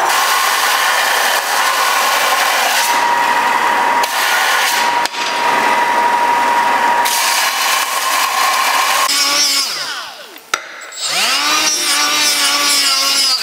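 Power saw cutting through a stainless steel exhaust tube bend held in a jig, a steady loud grinding hiss with a held ringing tone. About nine seconds in the cut ends, and a whining pitch falls away, rises again and drops off near the end.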